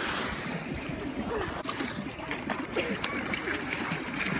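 Swimming-pool water lapping and splashing around swimmers treading water, with faint voices and shouts from a crowded pool in the background.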